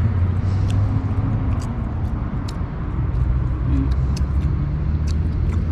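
A steady low motor hum, with scattered short clicks over it.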